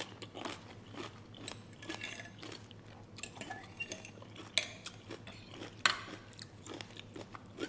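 Metal fork and spoon clinking and scraping against a ceramic bowl as noodles are stirred and lifted out of the broth, with scattered light clicks and a couple of sharper knocks about four and a half and six seconds in.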